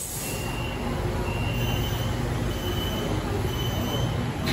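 Beijing Subway Line 7 train standing at the platform with a steady low hum, while a door-closing warning beeps in short high repeated tones as the train and platform-screen doors shut.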